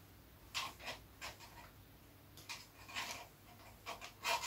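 Faint, scattered scrapes and clicks of hands and a small tool working wires inside a metal fluorescent light fitting, with a louder scrape right at the end.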